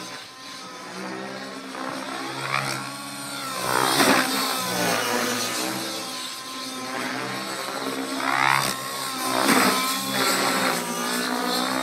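Align T-REX 700N nitro RC helicopter in aerobatic flight: its YS 120SR two-stroke glow engine running through a Hatori tuned pipe, together with the rotor blades. The engine note sweeps up and down in pitch, swelling loudest about four seconds in and again around nine seconds in.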